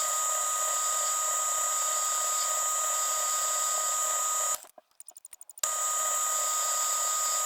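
Metal lathe running with a steady high whine while turning down a steel part. About four and a half seconds in the sound drops out for about a second, leaving a quick run of faint ticks, then the running resumes.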